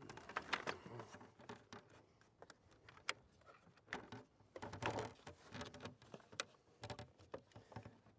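Irregular hard plastic clicks and knocks as a fish-finder display is handled and fitted onto its mount, with a cluster of louder knocks about five seconds in.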